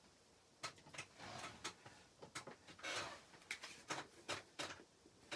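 A string of light clicks and taps with brief rustles: hands handling stencil transfers and a plastic paste jar on a craft table.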